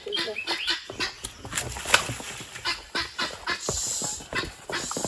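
A horse's hooves clopping irregularly on a stone-paved path as it is led at a walk, with one sharper knock about two seconds in.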